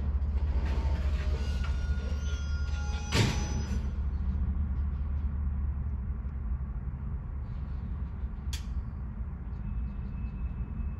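Loaded tank-car freight train at a near standstill: a low steady rumble, with faint wheel squeal dying away in the first few seconds. One clank comes about three seconds in and a sharp click about eight seconds in.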